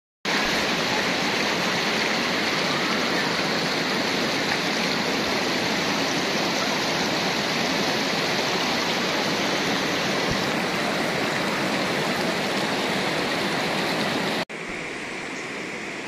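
Shallow, rocky mountain river rushing over and between boulders: a loud, steady water noise. About 14.5 seconds in it cuts abruptly to a quieter, softer flow.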